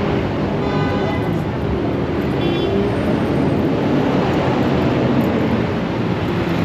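Busy city street traffic noise: a steady, dense rumble of passing vehicles, with two short pitched sounds about a second in and about two and a half seconds in.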